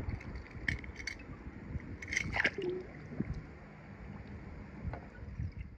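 Water squishing and dripping as toy cars are moved through a small pool of water, with a few light clicks in the middle.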